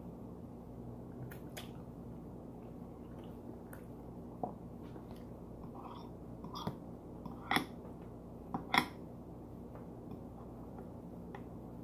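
Chewing and mouth sounds of someone eating chicken, over a steady low hum, with a few short sharp clicks and smacks in the middle stretch.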